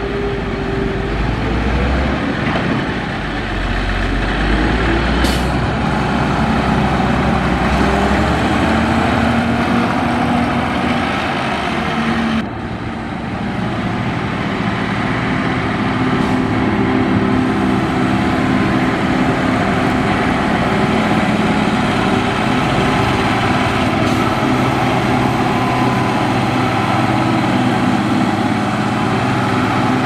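Dresser motor grader's diesel engine running under load while it grades dirt, its pitch shifting as the load changes, with a few short sharp clicks.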